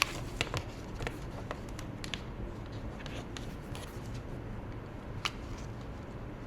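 A scatter of small, sharp clicks and taps from hands handling paper and stationery during journaling, the sharpest right at the start and one just past five seconds in.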